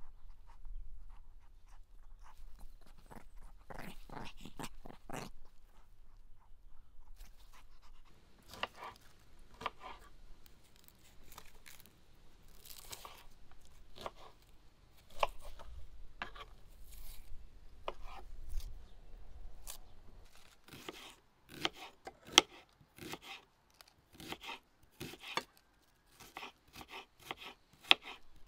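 Kitchen knife cutting red onion: scattered crisp cuts and crunches as the onion is peeled, then a quick run of knife strokes slicing it on a wooden cutting board near the end.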